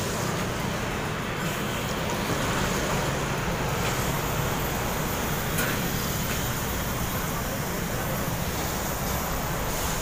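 Steady road traffic noise from passing vehicles, with a single short knock about five and a half seconds in.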